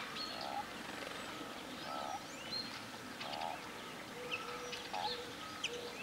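Wild birds calling around a seed feeder. Small songbirds give short high chirps and twitters, and a lower call repeats every second or so underneath.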